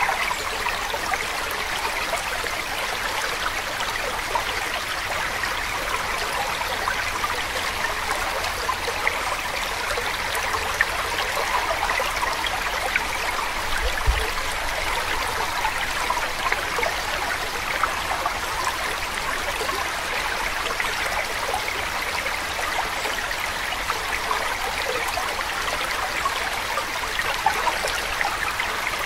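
Steady sound of running water, like a babbling stream, with fine trickling detail and an even level throughout.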